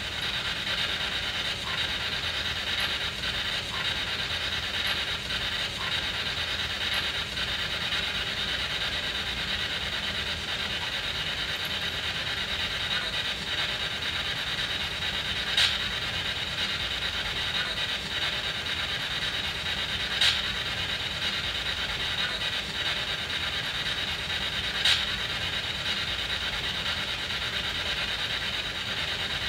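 SB7 spirit box sweeping through radio stations: a steady hiss of static, broken by three short sharp blips a few seconds apart in the second half. The uploaders take a fragment in the static for a spirit reply, captioned "Find me Sir".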